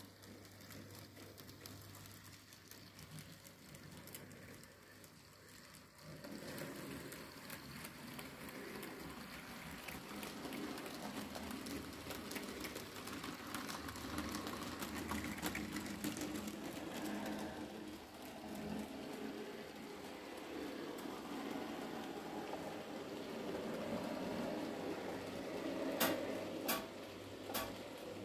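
N-scale Minitrix E 144 model electric locomotive hauling a freight train: the small motor whirs and the wagon wheels rattle on the track under a steady low hum. The rattle gets louder about six seconds in, and a few sharp clicks come near the end.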